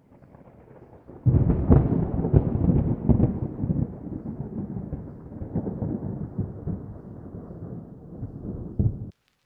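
A thunder-like rumble with crackles from a logo-intro sound effect. It starts faint, swells suddenly about a second in, slowly fades, and cuts off just before the end.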